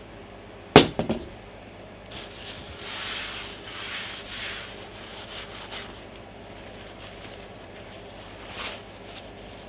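A spray can of electronics contact cleaner set down on a table with a sharp knock and two lighter knocks about a second in. Then paper tissues rustle and slide over the tabletop for a few seconds, with a brief swish again near the end.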